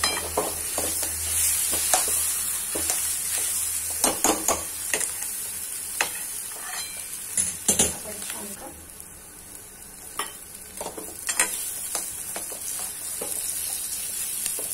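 A steel spoon stirs and mashes boiled potato masala in a metal kadhai, with repeated sharp knocks and scrapes of the spoon against the pan. A steady sizzle of the frying tempering lies beneath. The knocks come in clusters and ease off for a moment a little past the middle.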